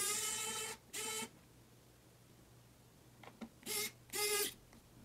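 Xiaomi Mijia electric precision screwdriver's small motor whining at a steady pitch as it turns a laptop bottom-case screw. It runs for about a second and a half at the start, briefly again just after, then in two short bursts near the end, with a few light clicks just before them.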